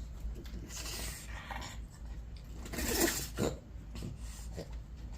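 A small pet animal sneezing: a sharp, short burst about three seconds in with a smaller one right after, among softer rubbing noises.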